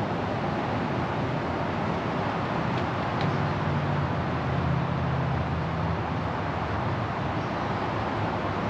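Steady outdoor background noise, a low rumble under an even hiss, swelling slightly in the middle.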